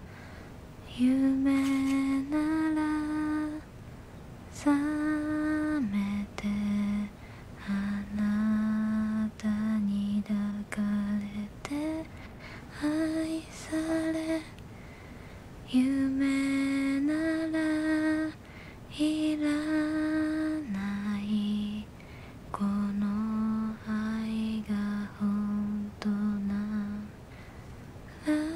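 A woman's unaccompanied voice humming a slow, lullaby-like melody without words. It moves in held notes grouped into phrases of a few seconds, with short pauses between them.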